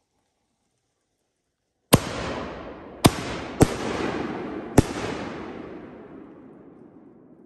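T Sky Fireworks canister shell bursting overhead with a sharp bang about two seconds in, then a dense crackling with three more sharp reports over the next three seconds, fading away near the end.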